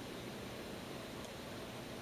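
Steady faint hiss with a low hum underneath: room tone.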